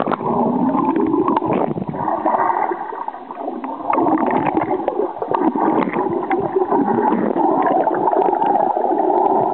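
Muffled, continuous rushing and gurgling of water with many small bubbling clicks, as heard with the microphone dipped underwater beside a swimmer kicking.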